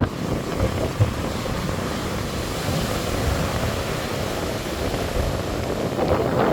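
Heavy surf with strong wind buffeting the microphone: a steady rumbling wash with gusty low thumps, one sharp bump about a second in.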